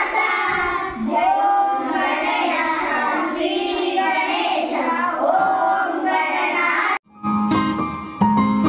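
A group of girls singing a song together. About seven seconds in the singing cuts off abruptly and instrumental music starts.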